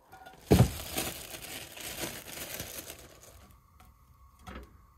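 Frying pan and tongs being handled: a hard clunk about half a second in, then a crackling hiss that fades out over the next two seconds or so, and a light knock near the end.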